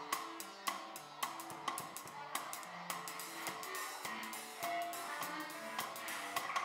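Live instrumental band music: a drum kit keeps up a steady run of cymbal and drum hits over a low synthesizer line stepping from note to note, with the Moog synthesizer being played.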